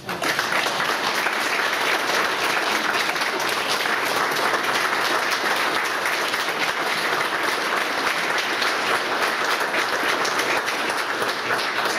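A roomful of people applauding, breaking out suddenly and going on as a steady, dense clatter of clapping hands.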